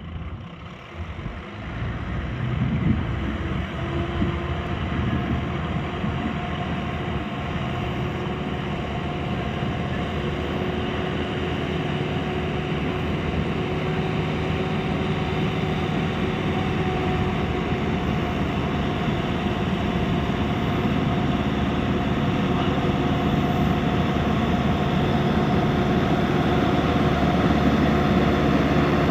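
Sonalika 750 DI tractor's diesel engine running steadily under load as it hauls a fully loaded trolley, fading in over the first couple of seconds and then growing slowly louder as it comes closer.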